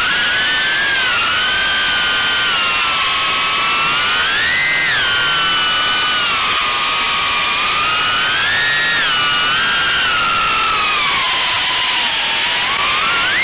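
Brushless motors and ducted 3-inch props of an Armattan Gecko cinewhoop quadcopter whining in flight, heard from the onboard camera over a rush of prop wash. The pitch rises and falls with throttle, swelling about 5 and 9 seconds in, sagging near the end and then climbing sharply.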